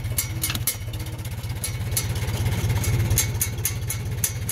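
A 1941 Farmall M's four-cylinder engine running slowly as the tractor creeps along at under a mile an hour in first gear, low range, with steady, even exhaust beats. Sharp ticks come through at irregular intervals.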